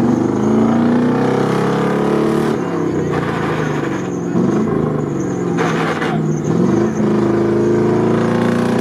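UAZ 4x4's engine running under load in mud, the revs rising and falling several times, with a short hiss about six seconds in.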